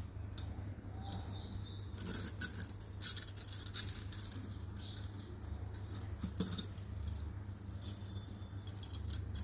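A stack of glass bangles and gold-coloured beaded bangles clinking and jingling against each other as they are handled and slid onto a wrist, in several short bursts, busiest a couple of seconds in and again near the end.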